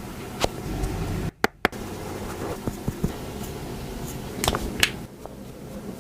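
Steady room tone with a few sharp, scattered clicks and taps, as of small objects being handled.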